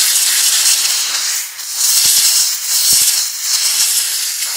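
Compressed-air blow gun blowing air through a round pleated air filter to clean the dust out of it: a loud, steady hiss that eases slightly about a second and a half in.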